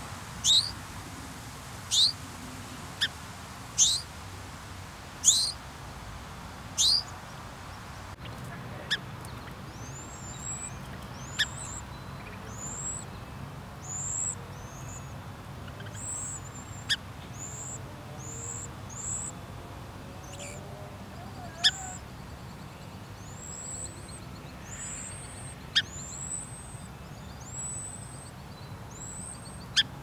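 Small songbird calls: loud, sharp downward-sweeping chips about every second and a half for the first seven seconds, then a string of thin, high peeps broken by an occasional sharp chip.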